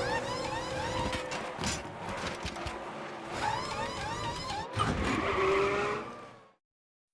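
Looping pit-stop sound effects from an animated DVD menu: car noise with quick series of short squeaks. The sound cuts off to silence about six and a half seconds in as the menu switches pages.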